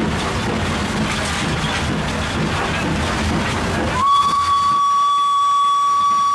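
Footplate of a WP class 4-6-2 steam locomotive under way: a steady rumble and hiss, then about four seconds in the locomotive's steam whistle sounds one steady high note, sliding up slightly as it starts and held for about two seconds before it cuts off abruptly.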